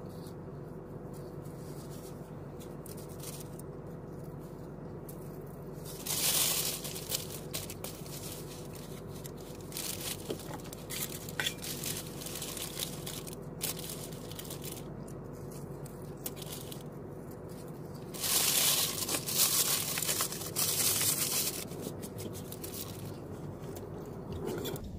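Paper napkin and wrapper rustling and crinkling, loudest in a short stretch about six seconds in and a longer one around eighteen to twenty-two seconds, with crunchy eating in between, over a steady low hum inside a car.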